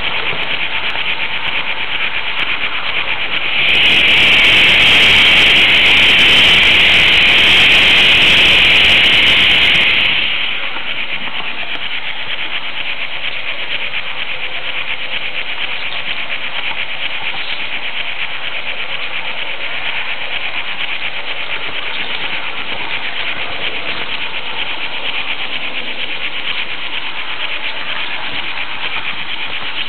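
H0 model train running on Märklin track, heard up close from a camera riding on a flat car: a steady hissing run of wheels and motor, louder and brighter for several seconds from about four to ten seconds in.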